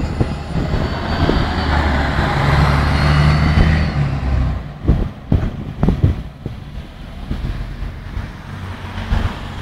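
Mercedes-Benz O 405 city bus's diesel engine pulling away from the stop, with a faint high whine over the engine note. About four and a half seconds in the engine note drops off, and the rest is quieter as the bus drives away.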